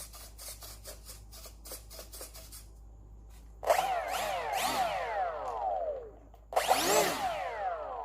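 A run of light clicks, then a small electric motor spun up twice, each time starting abruptly and winding down with a falling whine.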